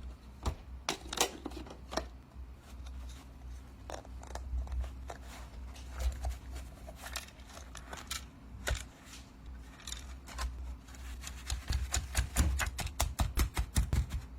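Clicks and scrapes of a Roborock S6 MaxV robot vacuum's plastic dust bin being taken out and opened by hand, ending in a quick run of rapid clicks.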